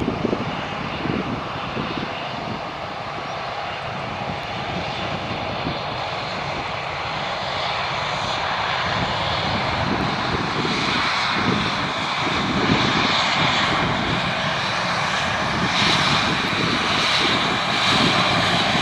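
Airbus A321 jet engines running as the airliner touches down and rolls out along the runway, a steady jet noise that grows louder and more hissing toward the end.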